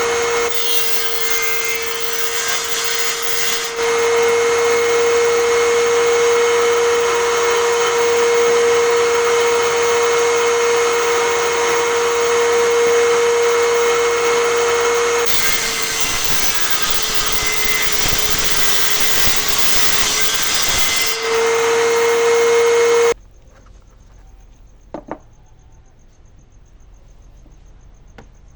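Table saw running loudly and cutting wood, its motor tone sagging in pitch under the load of a cut for several seconds. It cuts off suddenly near the end, leaving a quiet room with a couple of small clicks.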